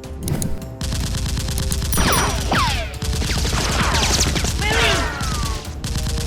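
Rapid automatic gunfire that starts a little under a second in as a dense, fast rattle, with several falling whistling tones over the middle.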